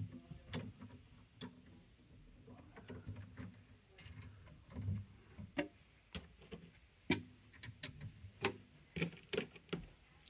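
Scattered faint clicks and taps of plastic parts being handled as the hotend and nozzle are refitted on a 3D printer's toolhead. The clicks come at irregular intervals, with a small cluster near the end, over a low steady hum.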